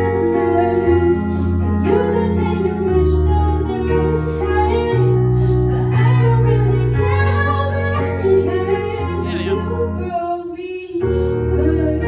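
Woman singing a song through a handheld microphone over a keyboard accompaniment of sustained chords that change every second or two. The accompaniment thins out briefly near the end, then comes back.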